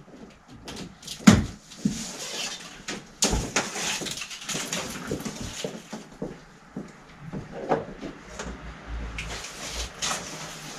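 Blue plastic packing straps being cut and pulled off a large cardboard bicycle shipping box: scattered knocks, clicks and rustles, the loudest a sharp knock about a second in.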